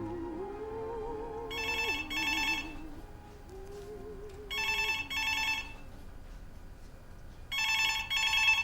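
Telephone ringing with a double ring: three pairs of short rings about three seconds apart. A soft, wavering held note of background music fades out under the first two rings.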